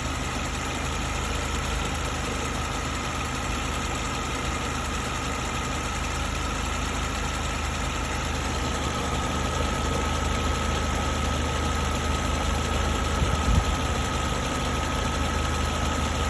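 Car engine idling with the air conditioning running and the electric engine cooling fan on: a steady hum with a thin, steady whine above it. A single brief low knock sounds about 13 seconds in.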